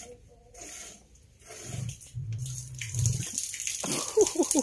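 A cow lowing: one low, drawn-out moo of about a second and a half, starting a little under two seconds in.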